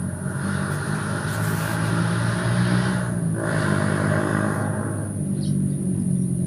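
A motor engine running with a steady low hum, while a louder rush of engine noise swells in just after the start, dips briefly about three seconds in, and fades away after about five seconds.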